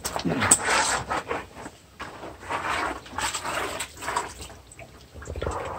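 Wet batik cloth being rubbed and swished by rubber-gloved hands in a shallow tank of water: irregular sloshing and swishing, several strokes about a second apart.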